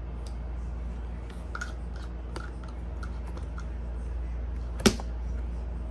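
Light clicks and taps of a spoon and bowl as a baby is spoon-fed porridge, with one sharper click about five seconds in, over a steady low hum.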